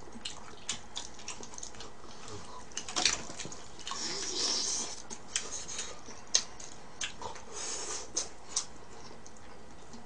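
Close-up eating sounds of a person chewing cheese-powder-seasoned fried chicken: many sharp wet mouth clicks and smacks, with a louder crunchy stretch about four seconds in and again near eight seconds.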